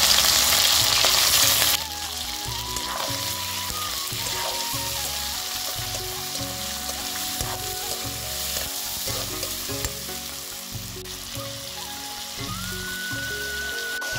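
Chicken pieces frying in hot oil in a large black wok, a loud sizzle that drops to a steadier, quieter sizzle about two seconds in, while a metal ladle stirs them.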